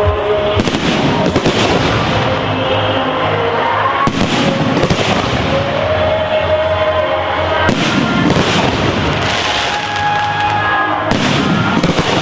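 Fireworks going off: a loud bang about every three to four seconds with crackling between, over music playing.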